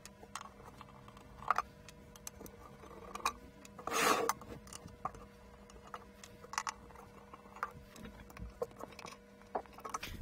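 A screwdriver turning slotted screws out of the metal lid of a camera control unit, with scattered small clicks and scrapes. There is a short louder noise about four seconds in, over a faint steady hum.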